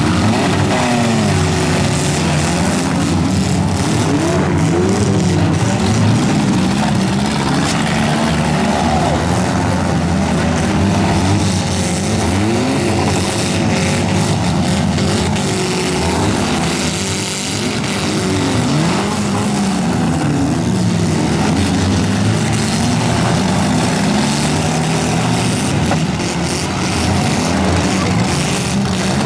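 Several four-cylinder demolition derby cars running at once, engines revving up and dropping back repeatedly as they accelerate, reverse and ram each other, with occasional knocks of car bodies colliding.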